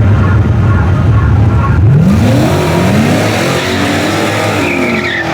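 Holden VP Commodore engine accelerating hard down a drag strip. A steady low engine hum gives way, about two seconds in, to revs that climb, drop and climb again as the automatic gearbox changes up.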